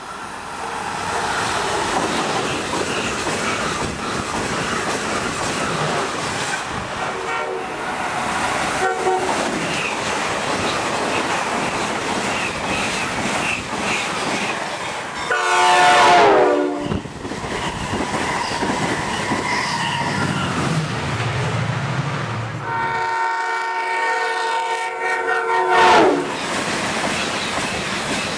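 Amtrak trains passing at high speed, with steady rushing rail and wheel noise and clickety-clack throughout. Their air horns sound chords: two faint short toots around 7 and 9 seconds in, a loud blast about 15 seconds in whose pitch falls as the train goes by, and a longer blast from about 23 seconds that drops in pitch at its end.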